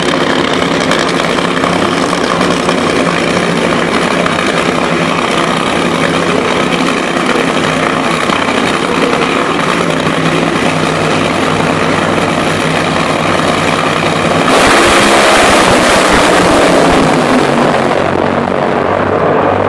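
Two nitromethane-burning drag racing engines run steadily on the starting line. About 14 seconds in they launch at full throttle with a sudden, much louder harsh blast lasting about three seconds, which then fades as the cars go down the track.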